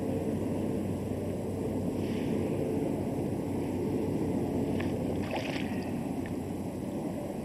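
Steady outdoor rumble with a low hum underneath, and a few light clicks and a short hiss between about two and six seconds in.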